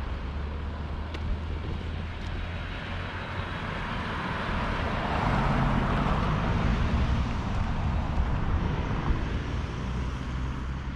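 A van driving past on a street: tyre and engine noise that swells about halfway through and then fades, over a steady low rumble.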